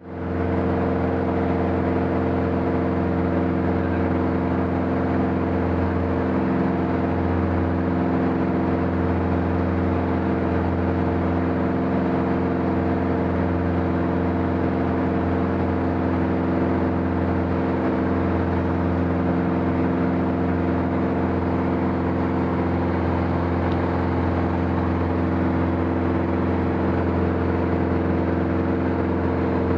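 Aircraft engine running steadily in flight: a constant, unchanging engine drone with a steady hum.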